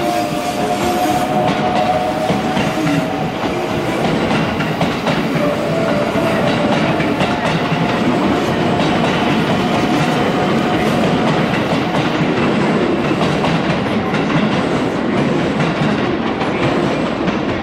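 JR West 'Haruka' limited express electric train, a Hello Kitty-wrapped 281 series, running along the station track with wheels clattering over rail joints, with a steady whine over the first half.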